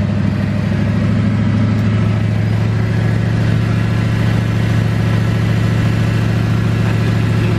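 A Ford Mustang's engine idling steadily through a jerry-rigged exhaust whose catalytic converters have been cut out, heard from underneath the car with a strong, even low hum.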